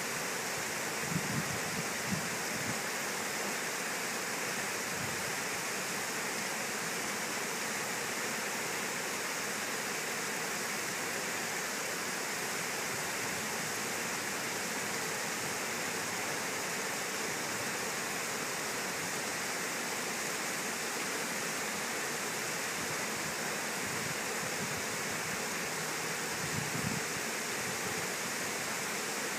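Steady rush of river water spilling over a low curved dam spillway, with a few soft low bumps about a second in and again near the end.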